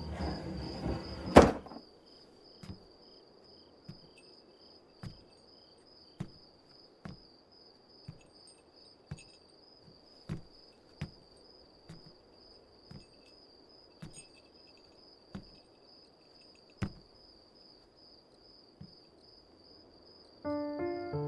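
A wooden lattice door claps shut with one sharp bang, then crickets chirp steadily in a quiet room while slow footsteps knock on a wooden floor, about one a second. Soft piano music comes in near the end.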